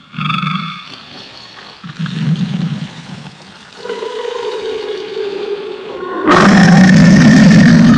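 Alligator roars: a short roar at the start and another about two seconds in, a held steady-pitched call from about four seconds, then a much louder roar from about six seconds in.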